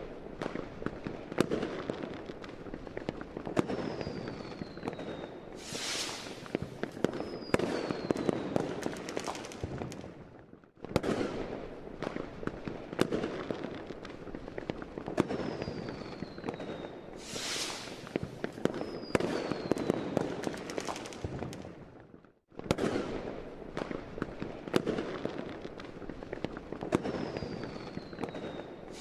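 Fireworks: steady dense crackling and popping with short whistles falling in pitch and a few louder bursts. The recording cuts out twice and restarts, repeating the same sequence as a loop.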